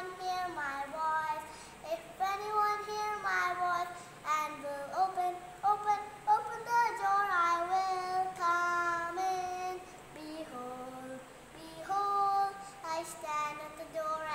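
A young girl singing a song solo and unaccompanied, holding notes in phrases with short breaks between them.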